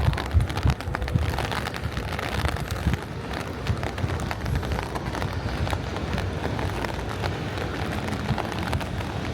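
Light rain pattering, heard as a steady hiss with fine ticks. Gusts of wind buffet the microphone with low rumbling thumps, strongest in the first second.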